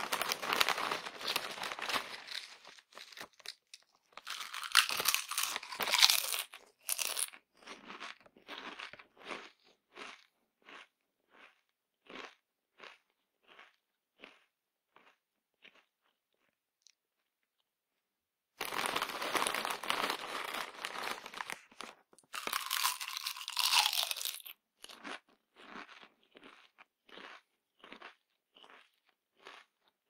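A person eating crunchy potato chips: loud, dense crunching as a mouthful is bitten, then steady chewing at roughly one to two chews a second that fades away. After a pause of about two seconds, another mouthful crunches and is chewed the same way.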